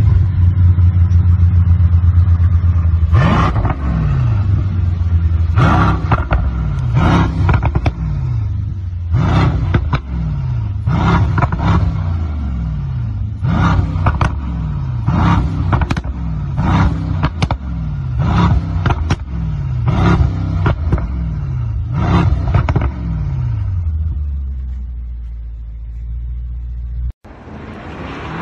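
Brabus Rocket 900's twin-turbo V8 revved repeatedly while standing still: about a dozen quick throttle blips, each with crackles and pops from the quad exhaust as the revs fall back. It settles to a steady idle near the end and then cuts off abruptly.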